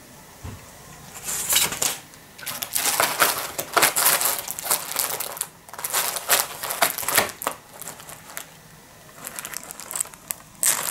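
Torn-open cardboard snack-cake box being handled and pressed flat by hand, crackling and crinkling in irregular bursts that begin about a second in.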